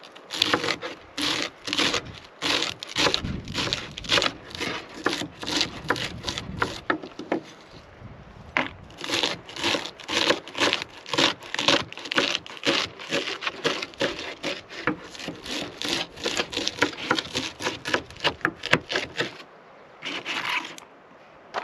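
Chef's knife chopping romaine lettuce on a wooden cutting board, in quick even strokes about three a second. There is a short pause about seven seconds in and another near the end.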